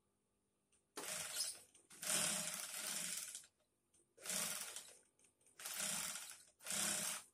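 Industrial sewing machine, driven by an electric motor under the table, stitching in five short runs of about half a second to a second and a half each, stopping between runs as the foot pedal is pressed and let go.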